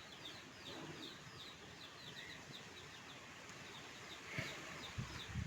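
Faint bird chirping in the background: a steady run of short, falling chirps, about three a second, with a few low thumps near the end.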